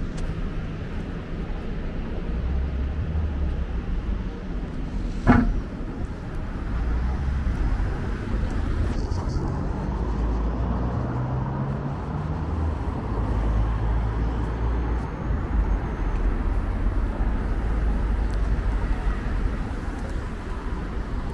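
Road traffic: passing cars running with a steady low rumble, and one sharp knock about five seconds in.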